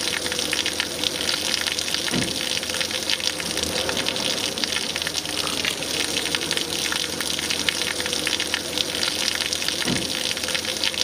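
Water gushing steadily from a pipe, pumped up from a newly drilled well, with a faint steady tone under the rush.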